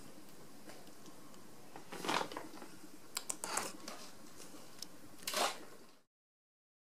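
Quiet room tone broken by a few short rustling noises and a quick run of clicks, then the sound cuts off to silence about six seconds in.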